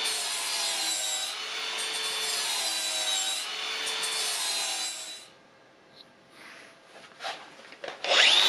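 Cordless angle grinder with an abrasive disc grinding a welded sheet-steel motor fan cover: a steady rasping grind with a wavering whine. It stops about five seconds in, a few light knocks follow, and a loud grind starts again just before the end.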